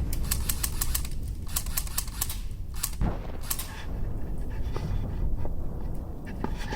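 Airsoft guns firing in quick strings of sharp clicking shots during the first few seconds, then only a few scattered shots, over a steady low rumble of wind and handling on the microphone.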